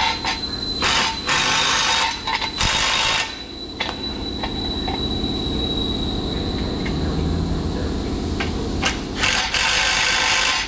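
Power tool, likely an impact wrench, running in several short bursts as bolts are driven into smooth-bore holes to cut their own threads, with the longest burst near the end. A steady low hum and a thin high whine run underneath.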